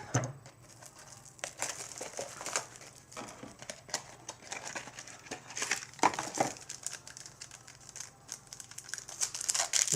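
A baseball card pack's wrapper crinkling and rustling in irregular bursts as it is torn open and handled.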